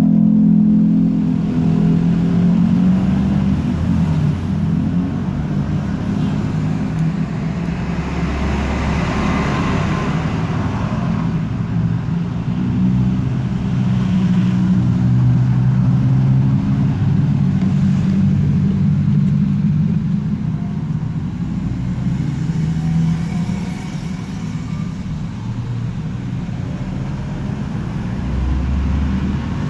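A motor vehicle engine running, its pitch wandering up and down, with a rush of noise about a third of the way in.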